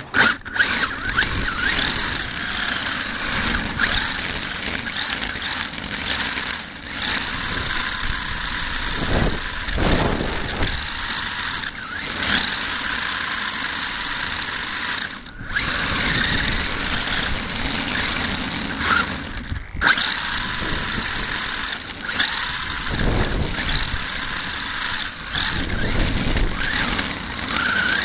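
HSP radio-controlled buggy's motor and drivetrain whining as the car drives over asphalt, heard from a camera riding on the car. The pitch rises and falls with the throttle over a rumble of tyres and road, and drops out briefly twice near the middle when the throttle is let off.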